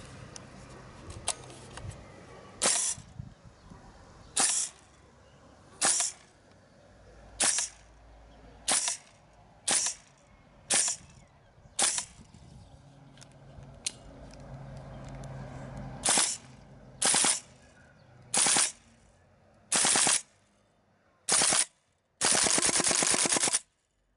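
CAA M4 Carbine gas blowback airsoft rifle firing single shots about a second or so apart, each a sharp crack with the bolt cycling. Near the end it fires a short rapid full-auto burst.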